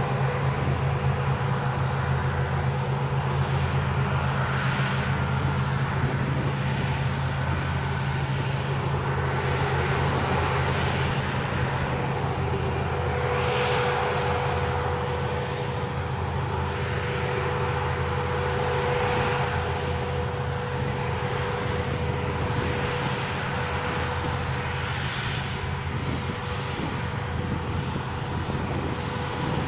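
Palesse GS12 combine harvester working a wheat field, its engine and threshing machinery a steady low drone. A high, even chirring sits over it and swells every few seconds.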